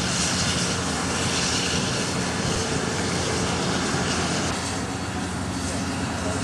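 Union Pacific Challenger steam locomotive passing with its train: a steady heavy rumble and hiss, easing slightly about two-thirds of the way through.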